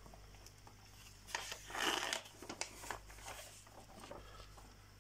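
Glossy magazine pages rustling and crinkling as a page is turned and smoothed flat by gloved hands, the loudest rustle about two seconds in, with smaller ones before and after.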